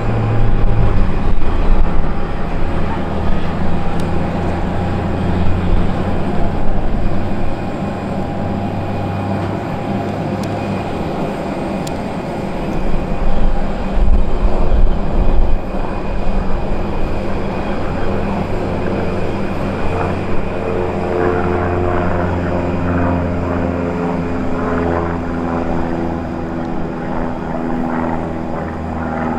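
Cessna 172 Skyhawk's single piston engine and propeller droning as it flies past, with a steady pitched hum coming through more clearly in the second half. Gusty wind rumbles on the microphone throughout, swelling near the start and again about halfway through.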